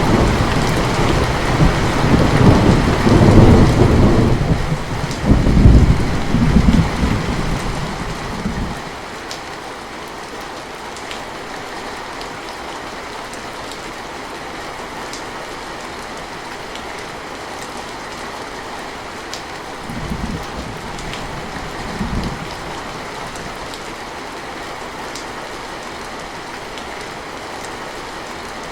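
Steady rain falling, with a long roll of thunder that swells and rumbles through the first eight seconds and then dies away. After that the rain goes on alone, with two short low rumbles of thunder about twenty seconds in.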